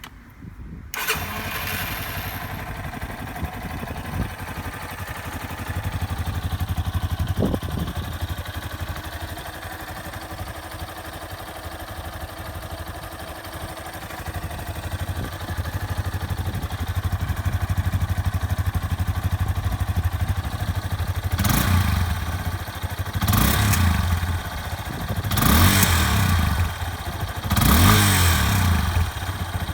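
Yamaha Serow 250's single-cylinder four-stroke engine, breathing through its stock silencer, starts about a second in and settles into a steady idle. Near the end the throttle is blipped four times, each rev rising and falling back to idle.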